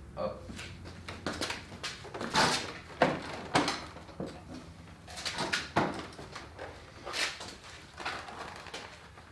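Clunks, knocks and scrapes of a Honda HRX217 walk-behind lawn mower being tipped over onto plastic milk crates, about a dozen irregular bumps with the loudest two to four seconds in.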